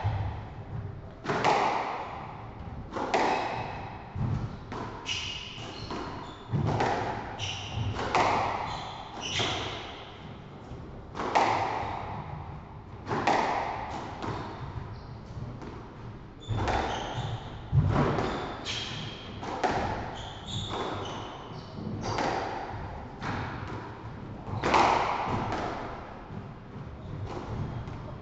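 A squash rally: the ball knocks off rackets and the walls every second or two, each hit echoing in the court, with shoes squeaking briefly on the wooden floor between shots.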